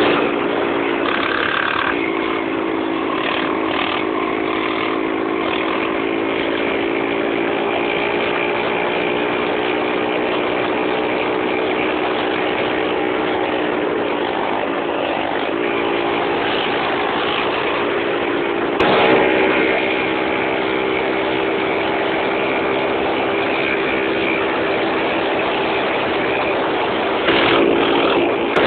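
Motorcycle engine running at a steady road speed, heard from on board with wind and road noise over it; its pitch holds fairly even, and it gets briefly louder about 19 seconds in and again near the end.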